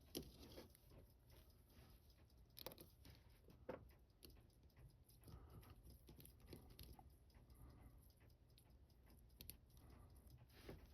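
Near silence with a few faint, sharp clicks, typical of metal tweezers and small tools touching watch parts during disassembly: three clearer ones in the first four seconds, then weaker ticks.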